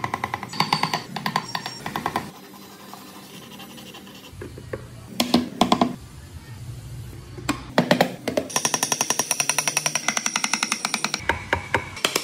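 A handheld power tool working wood in bursts with a fast, rapid pulsing, the longest and steadiest run coming in the last few seconds, over background music.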